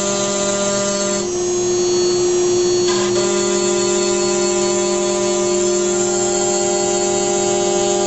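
CNC router spindle running at speed with a steady whine, milling a copper-clad board. A lower hum drops out for about two seconds near the start, then returns.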